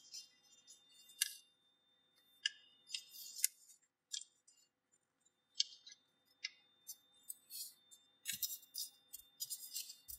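Sheet of A4 paper being folded and creased by hand: short, sharp crackles and rustles every second or so, coming thicker and faster near the end.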